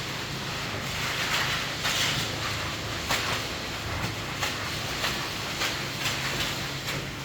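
A motor runs steadily underneath, while short scraping or rushing noises come at irregular intervals, about one or two a second.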